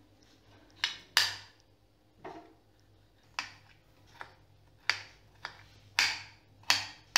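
Kitchen knife chopping a soft roasted tomato on a ceramic plate: about ten sharp taps of the blade striking the plate, unevenly spaced, roughly one every half second to a second.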